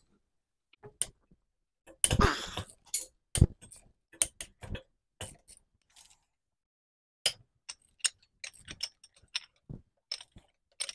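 Long-handled ratchet loosening the connecting-rod cap bolts on a Ford 4.6L two-valve V8's bottom end: scattered sharp metal clicks and ratchet ticks, with a louder clatter about two seconds in. The bolts are still torqued to spec and have never been loosened before.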